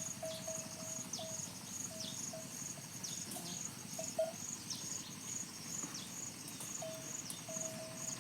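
Insects chirping in rapid, steady pulses, with a short mid-pitched note repeating underneath and a few quick downward-sliding chirps.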